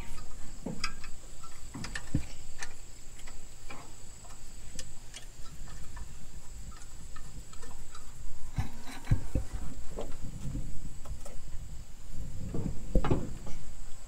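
Irregular clicks, taps and knocks of hand tools and parts being worked in a tight spot under a truck's hood, a few sharper knocks near the end, over a steady high-pitched insect drone.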